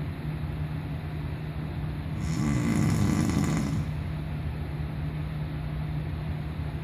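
A person snoring: one long snore begins about two seconds in and lasts about a second and a half, over a steady low hum.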